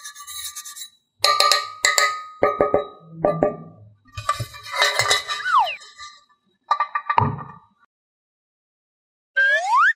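A metal muffin tin clinking and ringing as it is handled and tapped, in several short bouts. A falling whistle-like glide comes about five seconds in, and a pitched sound that rises and falls starts near the end.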